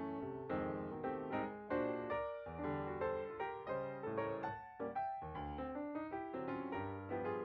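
Background piano music: a light melody of struck notes over a bass line, several notes a second.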